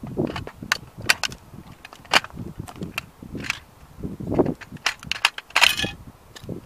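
Sneaker soles crushing a 1:18 scale model Ferrari, its body and parts cracking and snapping in an irregular string of sharp cracks with crunching between them. A dense flurry of cracks comes near the end.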